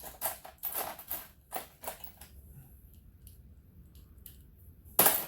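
Hand tools and loose motorcycle parts being handled: a quick run of short scraping, rattling strokes, then a louder scrape near the end.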